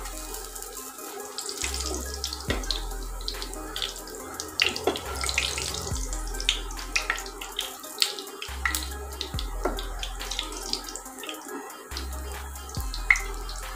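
Poha cutlets sizzling steadily as they shallow-fry in hot oil in a nonstick pan. Repeated clicks and scrapes come from a metal slotted spoon against the pan as the browned cutlets are lifted out.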